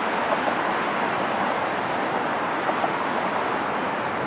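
Steady city traffic noise: an even rushing din with no single vehicle or horn standing out.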